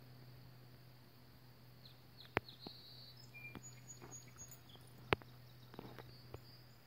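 Faint outdoor ambience with a steady low hum and a few short, high bird chirps. Two sharp clicks stand out, one about two and a half seconds in and a louder one about five seconds in.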